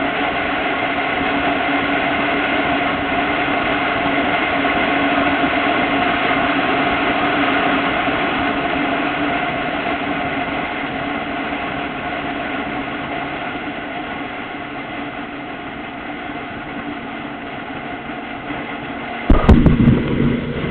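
Motorcycle engine running steadily at cruising speed under wind and road noise, heard from on board the bike. It eases off gradually, and near the end a sudden, much louder rough low rumble breaks in.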